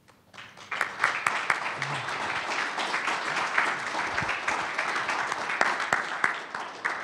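Audience applauding, a dense patter of many hands clapping that starts just after the talk's closing thanks and keeps up steadily.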